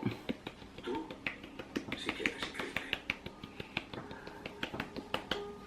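Spice container shaken and tapped over a plate to sprinkle cinnamon on sweet potato: a run of light, irregular clicks and taps, several a second.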